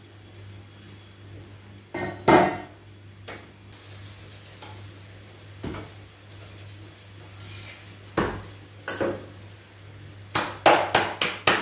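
Kitchen utensils knocking and clattering against a tawa griddle as a paratha is turned and cooked: a few separate knocks, then a quick run of sharp taps near the end.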